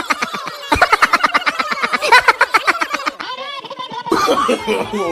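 A crowd of spectators shouting and laughing in rapid, overlapping bursts, with a short lull about three seconds in before the voices pick up again.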